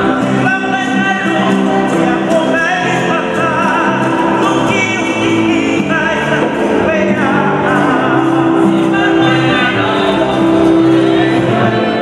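Choir singing a hymn, with wavering held notes over steady low accompaniment.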